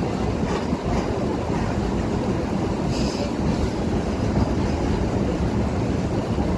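Electric multiple unit (EMU) local train running, heard from on board: a steady low rumble with wind buffeting the microphone.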